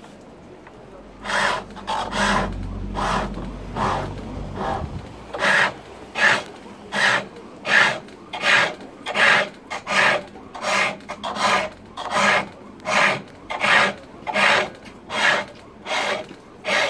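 Wood being turned on a treadle-driven pole lathe: the cutting tool rasps against the spinning wooden spindle in regular strokes, about four every three seconds, as the treadle drives the work back and forth. The strokes start about a second in and are uneven at first, over a low rumble.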